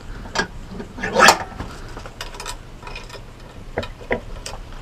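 Light clicks, taps and clatter of a wooden mousetrap and a small aluminum pop rivet being handled in a vise as the rivet is pushed into a drilled hole, with one louder knock about a second in.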